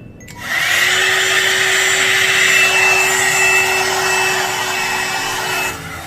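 One-step hair dryer brush (blower and styler in one) running, blowing a steady rush of air with a hum and a higher whine; it starts about half a second in and cuts off shortly before the end.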